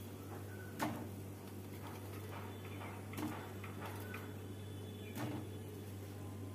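Fried fish-roe fritters dropped one at a time into a steel kadai of simmering tamarind gravy: a few faint soft plops and knocks, the clearest about a second in, over a low steady hum.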